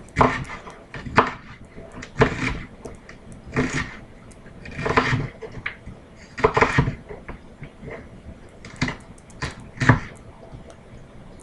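Kitchen knife slicing through an onion and knocking on a wooden cutting board, in slow, irregular cuts about one every second or so.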